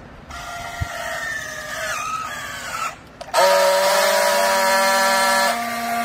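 Battery-powered handheld strapping tool working on plastic bale strap. It starts with a motor whine of about two and a half seconds, the strap-tensioning stage. After a brief pause comes a louder, steady buzz of about two seconds, the friction-welding stage that seals the strap.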